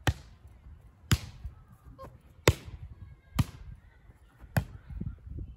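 A volleyball struck by hand again and again in a rally: five sharp slaps, roughly one a second.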